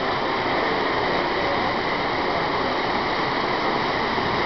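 Steady, even rushing din of a model train layout in operation: toy trains rolling on the track amid room noise.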